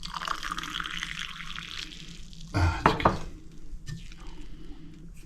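Water running or pouring in a steady hiss for about two seconds, then stopping; a couple of light clicks follow.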